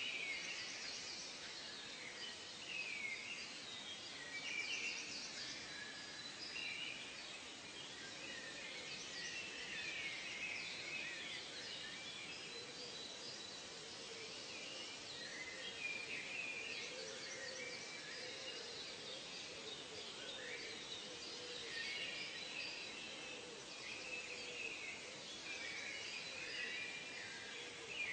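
Chorus of many birds calling and chirping over one another, short rising and falling notes overlapping throughout, over a steady thin high tone and a soft background hiss.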